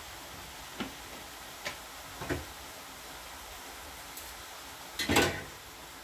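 Kitchen utensils and cookware knocking: three separate knocks in the first couple of seconds, then a louder cluster of clattering knocks about five seconds in, over a steady hiss.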